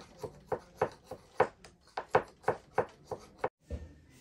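Sharp clicks, about three a second and unevenly spaced, from hands working a small object; they stop suddenly about three and a half seconds in.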